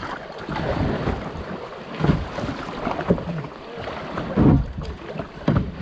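Rushing, splashing river water around a small paddled boat in choppy water, with a few louder knocks and splashes along the way, and wind buffeting the microphone.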